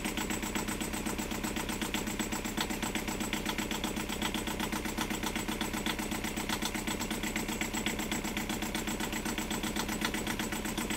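Small marine diesel engine idling with a steady rapid pulse, its wet exhaust spitting cooling water from the hull outlet. The engine is running on liquid drawn from a bucket to flush descaler out of its heat exchanger.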